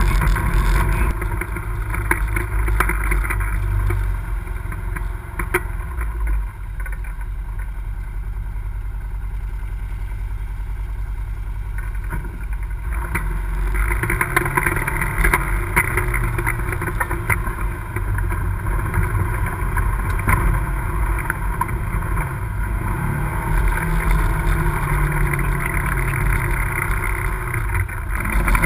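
Polaris RZR XP side-by-side's twin-cylinder engine running as it drives a dirt trail, easing off for several seconds in the middle and then pulling harder again, with scattered knocks from the rough ground.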